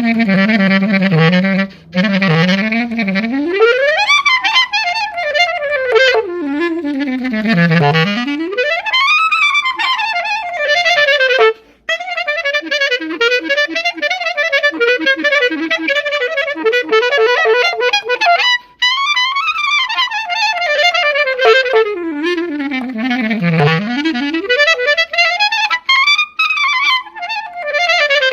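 Selmer Privilege clarinet played unaccompanied: fast runs sweeping from the bottom of its range up to the high register and back down, again and again, with three brief breaks for breath.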